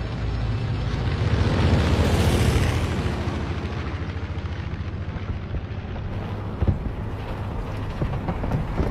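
WWII propeller fighter planes flying past in a film soundtrack: a fast, pulsing engine drone with a loud rushing swell about two seconds in as they pass, and a single sharp bang later on.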